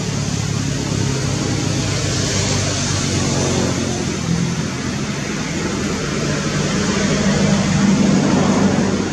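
A motor vehicle's engine running close by, a steady low hum over a rush of road noise, growing a little louder near the end.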